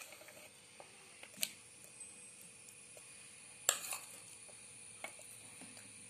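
Banana slices dropped into a stainless steel mixer-grinder jar: a few light knocks against the metal, a sharper one about a second and a half in and the loudest clatter a little past halfway.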